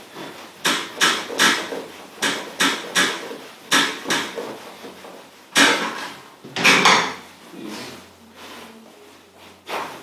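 About a dozen sharp knocks and cracks at irregular intervals during hands-on chiropractic treatment of the neck and shoulders. The two loudest come around five and a half and seven seconds in.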